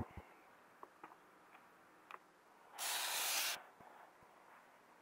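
A few faint clicks, then a soft hiss about three seconds in that lasts under a second.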